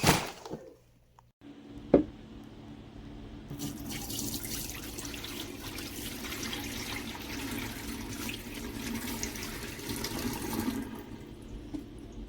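Water running steadily, starting with a click about two seconds in and growing fuller and hissier from about four seconds in until it eases near the end.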